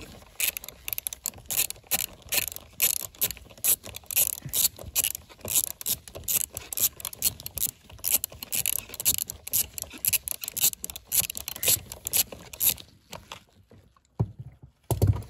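Hand ratchet clicking in quick uneven spurts as it backs out a steering-wheel airbag mounting bolt through a socket extension. The clicking stops about two seconds before the end, followed by a dull knock.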